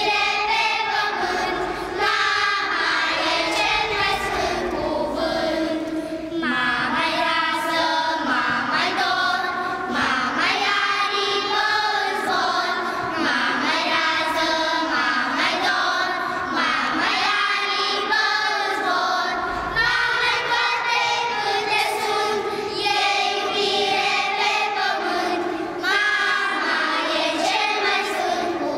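Children's choir singing together in phrases of a few seconds, with brief breaths between them.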